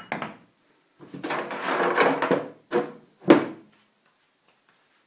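Parts and tools being rummaged through in a box of lathe accessories: a click, about a second and a half of scraping and rattling, then two sharp knocks as pieces are set down.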